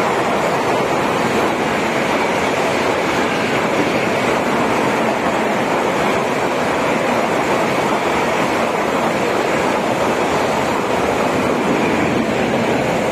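Steady, loud rush of the 12434 Chennai Rajdhani Express's LHB passenger coaches running past at speed close by: wheel-on-rail noise and rushing air, partly buffeting the microphone.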